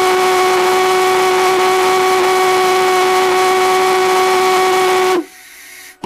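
Propane-fuelled stainless-steel Lady Anne Boleyn Rev.07 valveless pulsejet running with a loud, steady buzzing tone over a rushing hiss. About five seconds in the pitch rises slightly and the engine cuts out. A fainter hiss follows, then a short pop as flame bursts from the tailpipe. The engine quits as it heats up, which the builder fears is a tube length slightly out of tune between intake and exhaust; later tests pointed to too little propane fuel pressure.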